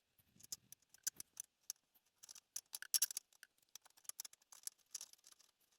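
Irregular, faint, light clicks and clinks of a bolt and small parts being handled, loudest about three seconds in.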